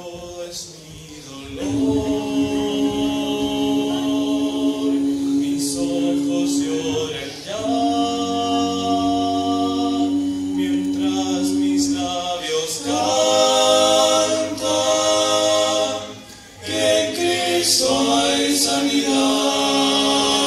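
A male vocal quartet singing a cappella in close harmony. Held chords come in phrases, with brief pauses between them, one early and one about two-thirds of the way in.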